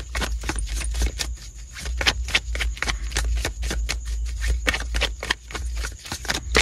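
Tarot cards being shuffled by hand: a quick, irregular run of card clicks and snaps, several a second.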